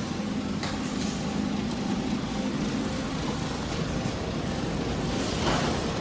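Steady low hum and hiss of background machine noise, with a faint click or two.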